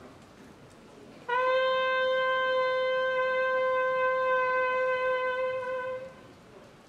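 Corneta (valveless processional bugle) holding one long, steady note for about five seconds after a pause of about a second, then fading away.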